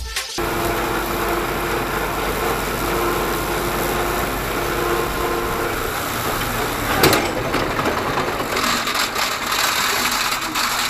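Tractor engine running steadily while a tractor-mounted rotary mower cuts grass, with a single sharp knock about seven seconds in.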